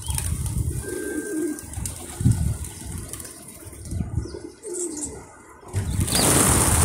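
A flock of feral pigeons and doves cooing in repeated low phrases while they feed. About six seconds in, a loud rushing noise rises over them.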